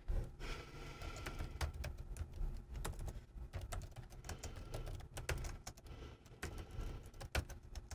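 Typing on a laptop keyboard: a quick, uneven run of key clicks.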